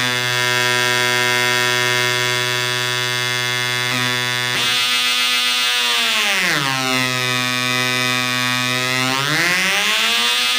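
Homemade optical theremin: two 555 timer oscillators with photoresistors, playing square-wave tones through amplified PC speakers. The pitch holds steady, glides down about five seconds in, holds lower, then glides back up near the end, following the changing light on the photoresistors.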